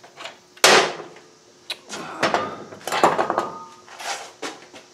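Metal tools and parts being handled while rear-axle hardware is refitted on a motorcycle, making a series of clanks and knocks. The loudest comes about half a second in, and a couple near the middle ring briefly like metal.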